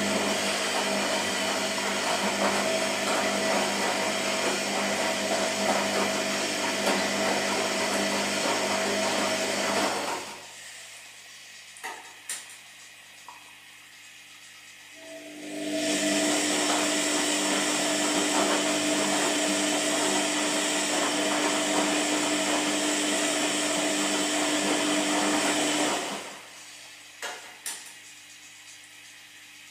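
Washing machine running in wash-cycle agitation: the motor and drum run steadily for about ten seconds, stop for about five seconds with a few light clicks, then run again for another ten seconds at a lower hum.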